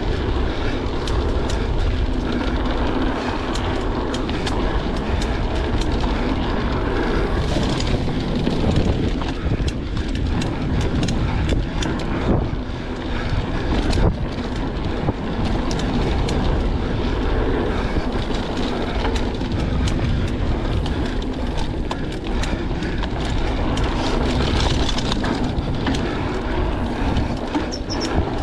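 Mountain bike riding fast along a dirt singletrack: a steady rumble of tyres on dirt and wind buffeting the camera microphone, with frequent clicks and rattles from the bike over bumps.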